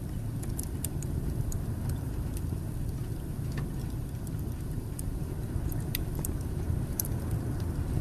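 Wood fire burning on a fireplace grate: a steady low rumble of flame with sparse sharp crackles and pops, the two loudest pops about six and seven seconds in.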